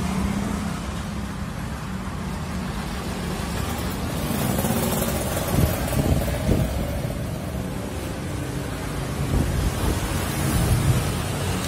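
Road traffic on a city street: cars and motorbikes running past, with one vehicle going by louder about halfway through.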